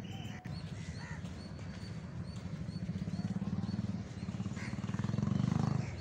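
Wind buffeting the microphone: an uneven low rumble that swells over the last few seconds and drops off near the end.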